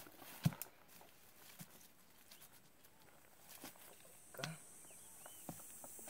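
Dry brush and leaves crackling as a man works and moves through them, with one sharp crack about half a second in and a few faint snaps and knocks after it.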